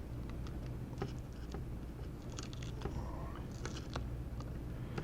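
Faint scattered clicks and small crackles of protective tape being peeled off a laptop motherboard, over a steady low hum.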